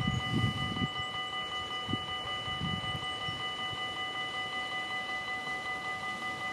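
Level-crossing warning bells ringing steadily on several pitches at once, the ringing pulsing about three times a second: the signal that a train is approaching and the barriers are down. A brief low rumble sits under it in the first second.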